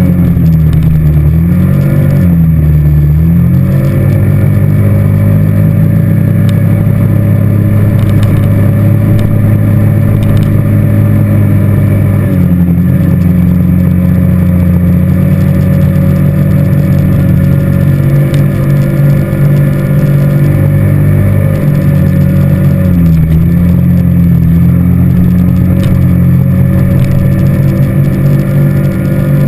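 ATV engine running while riding, loud and close, its pitch dipping twice in the first few seconds and shifting a few more times as the speed changes.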